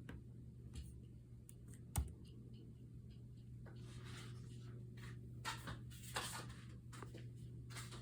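Irregular light clicks and taps, with one sharper click about two seconds in, then scratchy rubbing sounds in the second half, over a steady low hum.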